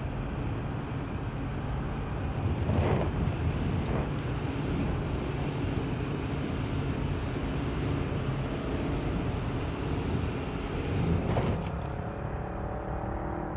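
Infiniti QX80's 5.6-litre V8 running under load on a steep off-road climb, with a steady rush of noise and two brief louder bursts. Traction control is on and holding back power, so the vehicle is only inching forward.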